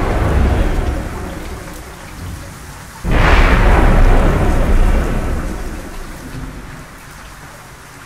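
Steady rain with thunder: a rumble dying away in the first second or so, then a sudden loud thunderclap about three seconds in that rolls and fades out over the next few seconds.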